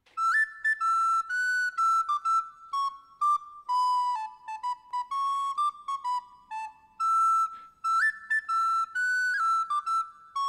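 Background music: a solo flute-like wind melody, one line of clear held and stepping notes in a high register, its opening phrase repeating about seven and a half seconds in.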